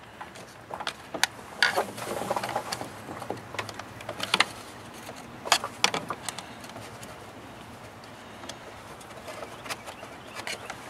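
Flat-blade screwdriver prying at a car battery's negative terminal clamp to lift it off the post: scattered sharp clicks with scraping in between.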